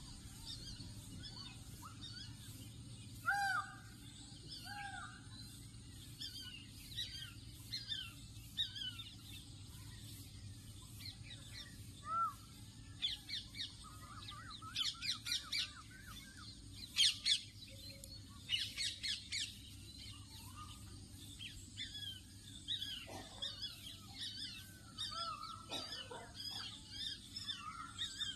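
Several birds chirping and calling in a dawn chorus, with bouts of quick repeated notes in the middle, over a steady low hum.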